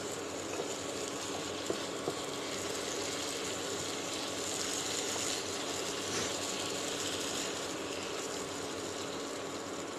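Bata fish and potato pieces sizzling in spiced oil in a nonstick frying pan while a wooden spatula stirs them, with a few light taps and scrapes of the spatula against the pan in the first two seconds.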